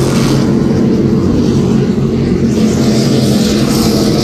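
Offshore racing powerboats' engines running flat out at speed, a loud steady drone with a hiss of spray and wind.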